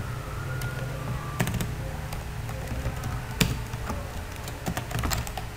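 Computer keyboard keystrokes, scattered single clicks at an uneven pace, over a steady low hum.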